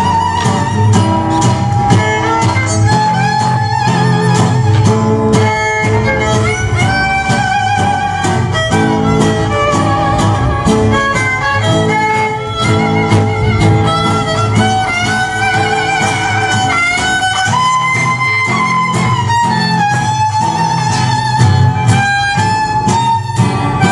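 Live band music led by a violin playing a melody with vibrato, over strummed guitar and bass keeping a steady beat.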